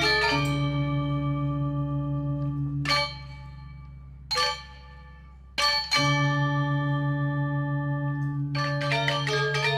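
Gamelan music: bronze metallophones and gongs struck together in ringing chords with long decays, over a low held note. There is a hushed gap in the middle, and a quick run of notes near the end.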